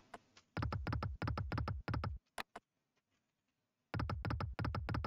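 Video slot game sound effects: two runs of rapid electronic ticking as the reels spin and stop, each lasting about a second and a half. The second run starts about four seconds in.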